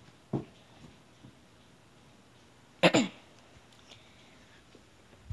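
A short, non-word vocal burst from a person, falling in pitch, about three seconds in, like a grunt or cough. It comes after a soft thump less than a second in, against quiet room tone.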